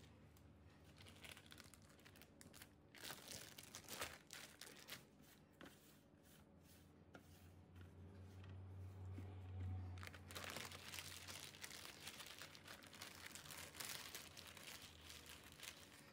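Plastic zip-lock bags crinkling and crackling faintly as they are handled and pressed flat. A low hum swells briefly around the middle.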